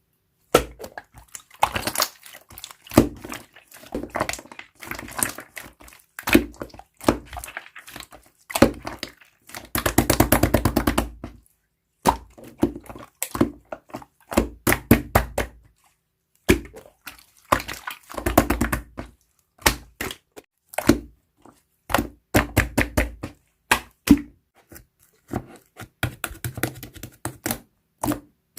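Hands squishing, stretching and poking slime, making bursts of crackling pops and clicks with short pauses between them. A long fast run of pops comes about ten seconds in, and another around eighteen seconds.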